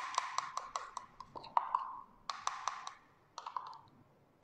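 A long metal bar spoon clinking against the inside of a mug while stirring yam powder into hot water to work out the lumps. The clinks come quickly, about five a second, each with a brief ringing tone, in three runs with short pauses between them.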